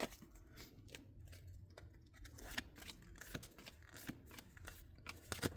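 Faint handling of Pokémon trading cards: scattered soft clicks and slides as the cards of a freshly opened pack are flipped through one by one in the hand.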